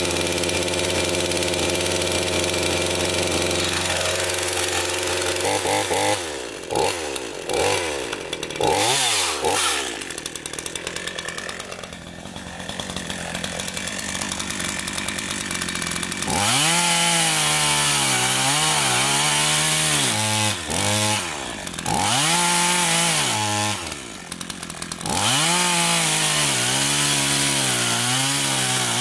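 Gas chainsaw running steady, revved in a few quick blips, then cutting into a wooden stump from about sixteen seconds in. Under load its engine note wavers up and down, with a few short breaks between cuts.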